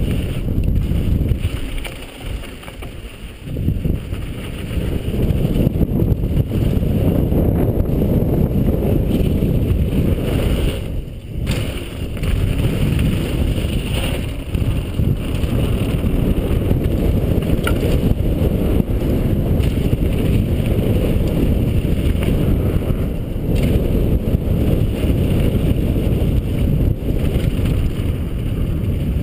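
Wind rumble on the microphone of a camera worn by a mountain biker riding fast downhill, mixed with the tyres running over a dry, stony dirt trail. The rumble eases briefly about two seconds in and again about eleven seconds in.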